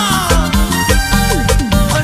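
Latin American dance band music from a recording: a high lead line slides down in pitch over about the first second, over a bass line and a steady dance beat.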